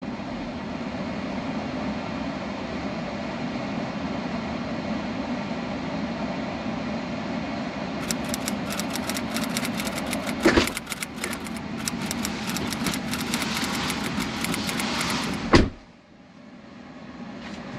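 A steady low hum, then from about halfway a fast, uneven run of typewriter key clicks with a couple of heavier strokes, which stops abruptly near the end.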